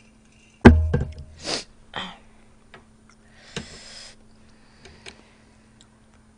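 A heavy thump on the table with a brief ring, about a second in, followed by short breathy sniffs and exhales and light clicks of metal chopsticks against a plate as food is picked up.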